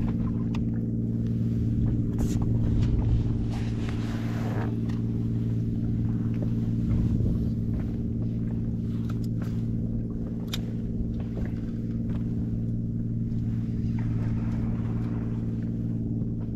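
A boat engine running steadily with an even low hum, with a few faint clicks and knocks over it.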